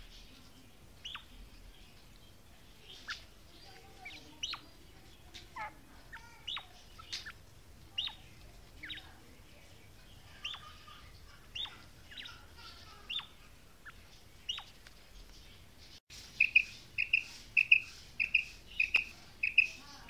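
Female quail calling: sharp downward-sweeping chirps, about one a second, irregularly spaced. After a cut about 16 s in, a louder, quicker run of short repeated notes, two to three a second.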